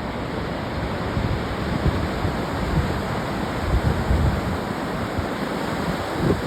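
Ocean waves washing onto a beach, a steady rushing noise, with wind gusting across the microphone in uneven low rumbles.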